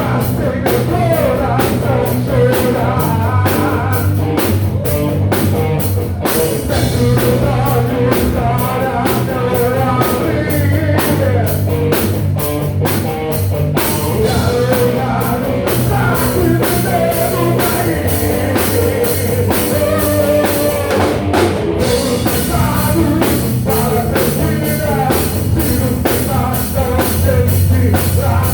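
Rock band playing live: drum kit, guitar and bass in a loud, steady groove.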